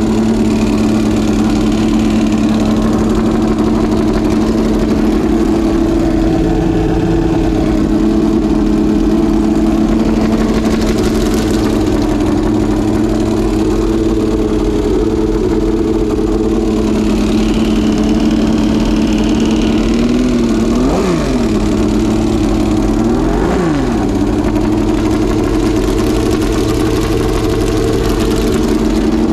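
Homemade Aardema-Braun 60-degree V12 engine, freshly rebuilt with new pistons, bearings and rings, running steadily on a test stand. Twice, a little past two-thirds of the way through, its note briefly swings in pitch and settles back.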